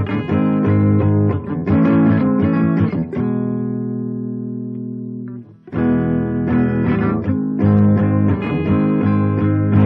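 Guitar played through a single-transistor circuit for a side-by-side transistor comparison: picked notes and chords, with one chord left ringing and fading for about two seconds in the middle before the playing picks up again.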